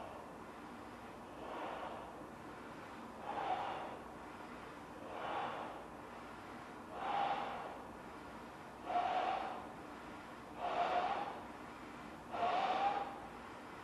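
A large latex balloon being blown up by mouth to pop it: seven long breaths pushed into its neck, one about every two seconds, the later ones carrying a steady hum.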